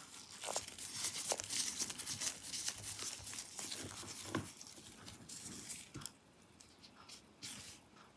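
Close handling noise of gloved hands working a small screwdriver on a laptop's bottom-panel screws: rustling of the disposable gloves and small clicks and scrapes of metal on the screws. It is busy for about the first six seconds, then quieter, with a few clicks.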